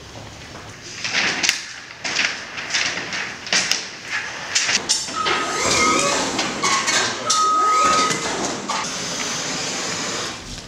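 Knocks and clatter of work on a scissor lift, then the lift's steady high electronic beep, sounding twice for under a second each as its joystick control is worked, over other shifting mechanical sounds.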